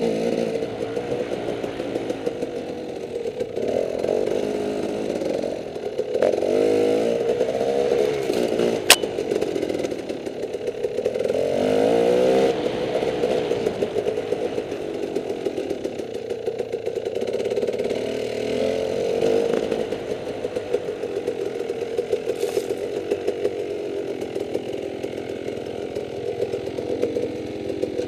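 Dirt bike engine running at low speed on a rough trail, its revs rising and falling with the throttle. A single sharp knock about nine seconds in.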